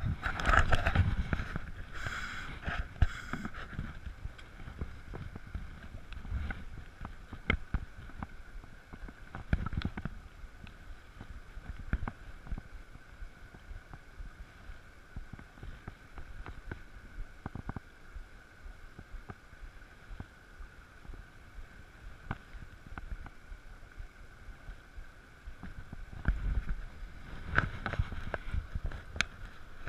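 Shallow stream burbling steadily over stones close by, with scattered irregular clicks and rustles from handling rod and line. Louder buffeting of wind on the microphone in the first few seconds and again near the end.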